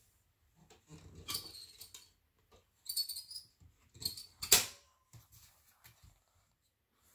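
Two kittens play-fighting on a fabric blanket: scuffling and rustling of the cloth, a few scratchy bursts, and one sharp knock about four and a half seconds in, the loudest sound.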